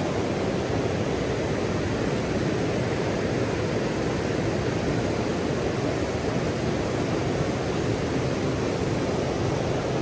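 Stream water flowing and rushing steadily, an even wash of sound without distinct splashes.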